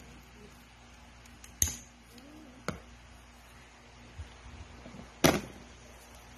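A few sharp clacks and clinks on a hard tabletop as metal scissors are set down and cut paper is handled. The two loudest come about a second and a half in and about five seconds in, with two lighter ones between.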